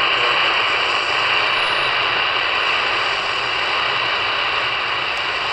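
Medium wave static from a CS 106 DSP portable radio's speaker, tuned to 918 kHz AM: a loud, steady hiss with no clear station coming through.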